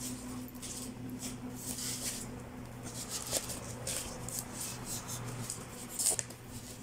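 Wrapping paper and plastic wrap crinkling and rustling in quick, irregular handfuls as a bouquet is wrapped and a ribbon tied around it, with a louder crackle about six seconds in. A steady low hum runs underneath.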